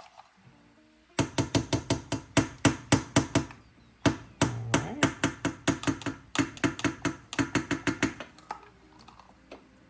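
A metal kitchen utensil knocking rapidly against a cooking pot, about five sharp clinks a second, in two runs of a few seconds each split by a brief pause about four seconds in.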